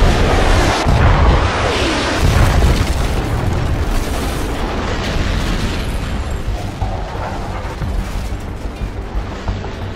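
Large explosions, loudest at the start, with a second blast about two seconds in, then dying away slowly.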